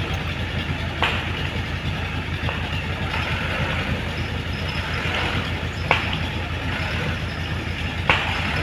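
Komatsu PC75UU mini excavator's diesel engine running steadily at work, with a hiss that swells in the middle and three sharp knocks: about a second in, near six seconds, and near the end.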